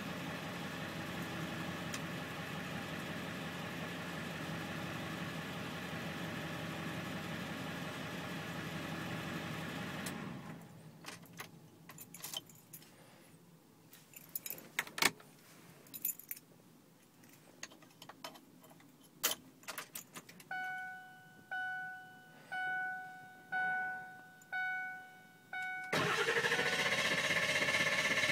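A Ford 7.3 L Power Stroke V8 diesel runs and is shut off about ten seconds in. Keys jingle and click, a dashboard chime sounds about once a second six times, and near the end the starter cranks the engine. It is a hot hard start after a short drive.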